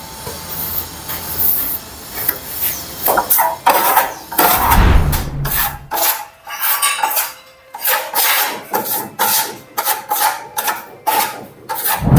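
Steel trowel scraping across a fresh burnt-cement (cimento queimado) wall coating as it is pressed on to burnish the effect. The second half is quick repeated strokes, about two or three a second, and there is a low rumbling noise around the middle.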